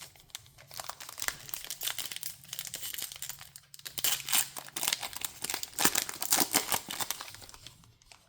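Foil wrapper of a baseball card pack crinkling and tearing as it is ripped open and handled, a dense run of crackles for most of the time.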